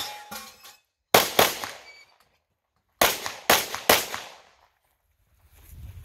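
Pistol shots: two quick shots about a second in, then three more about half a second apart around three to four seconds in, each with a short echo.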